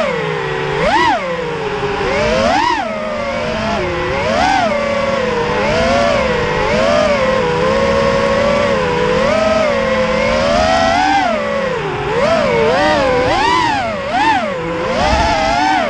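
FPV quadcopter's brushless motors whining, the pitch rising and falling again and again with the throttle: sharp punches about a second in and again near three seconds, and a run of quicker swoops near the end.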